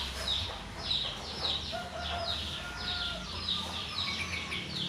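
Birds chirping: a short, high, falling chirp repeated about twice a second, with one longer, steady call for over a second near the middle.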